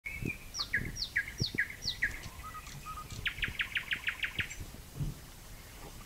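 Nightingale singing. A two-part phrase, a high note sliding down then a lower note, comes four times in quick succession, then a fast run of about nine notes, with a few faint low thumps underneath.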